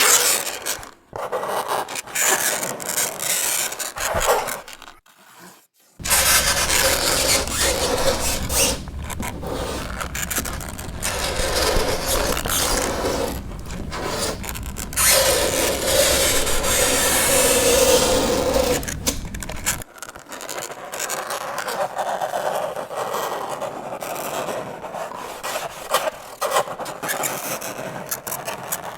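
Fingernails scraping across a chalkboard in a run of rasping strokes, with a short break about five seconds in and a held, pitched screech a little past the middle.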